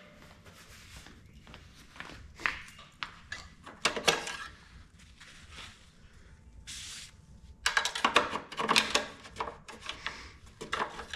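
Hand handling noises on a push mower's engine as its oil is checked: scattered clicks and rustling scrapes, a brief hissy rub, and a louder clattering scrape from about two-thirds of the way in.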